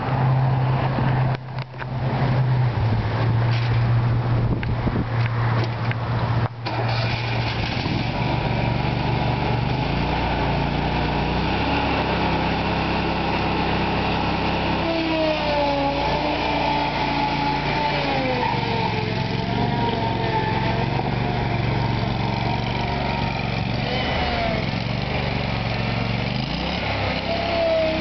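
Toro Z Master zero-turn mower's Kohler gas engine running while the mower is driven about. Its steady note shifts about ten seconds in, and from about fifteen seconds in a thin whine rises and falls in pitch over the engine.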